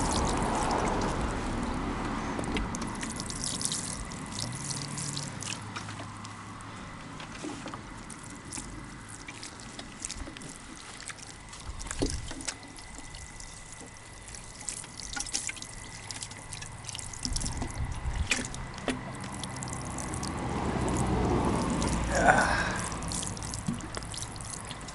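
Water poured over pieces of granite, trickling and dripping off the stone, louder at the start and again near the end.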